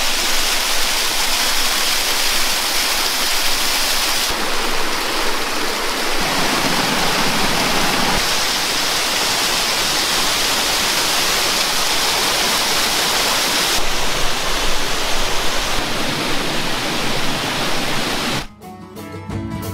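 Steady rush of a waterfall and a mountain stream cascading over rocks, its tone shifting slightly from shot to shot. Near the end the water cuts out and plucked-string music starts.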